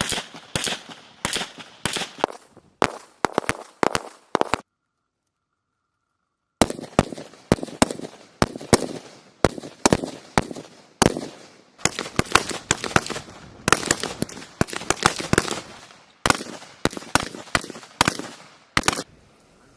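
Rifles firing many quick single shots, several shooters at once, irregular and overlapping, each crack trailing a short echo. The firing drops out to dead silence for about two seconds a little after four seconds in, then carries on.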